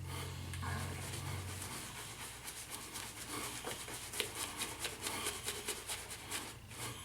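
Shaving brush scrubbing lather into about a week's stubble on the face: quick, scratchy rubbing strokes of bristles on whiskers.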